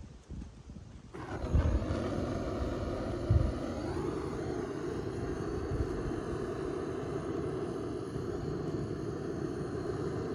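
Handheld butane cartridge torch burning with a steady hiss, its flame on two spark plugs to burn the carbon off them. The hiss starts abruptly about a second in, after a few soft knocks.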